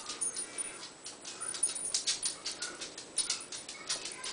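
Whippet's claws clicking and tapping on a hardwood floor as the dog moves about, with a couple of faint short whines.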